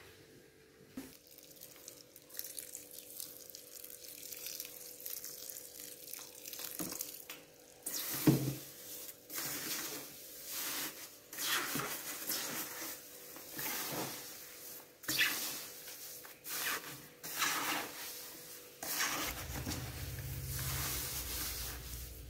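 Gloved hand stirring and squeezing wet compost mix of soil and chopped plant waste in a plastic bucket: irregular rustling and scraping, with one sharp knock about eight seconds in and a low rumble near the end.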